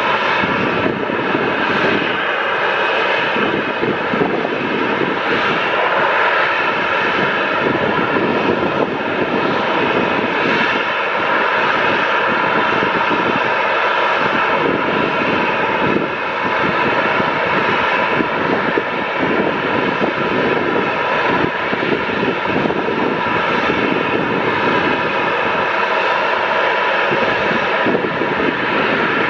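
Boeing 737-800's CFM56 turbofan jet engines running loud and steady, a whine of several held tones over a dense rushing noise.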